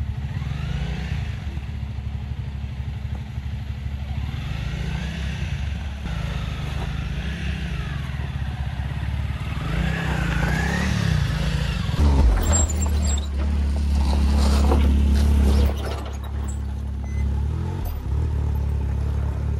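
Adventure motorcycle's engine running on a rocky dirt trail, its pitch rising and falling with the throttle, with scattered clattering knocks. About twelve seconds in a louder low rumble sets in for some four seconds, then drops back.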